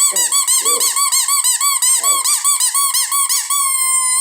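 Squeaky rubber toy ball squeezed rapidly over and over, giving a continuous high squeak that wobbles up and down about four times a second and settles into one held tone near the end.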